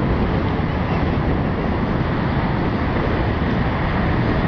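Steady wind rushing and buffeting on the microphone at a high open viewing deck, a constant rumbling noise with no breaks.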